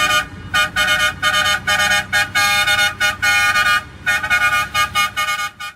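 Truck horn sounded in a quick rhythmic series of about ten blasts of one steady chord, over the low rumble of a running engine.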